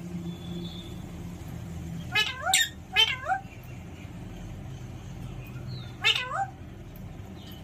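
Alexandrine parrot imitating a cat's meow: three quick meows about two seconds in and another about six seconds in, over a low steady hum.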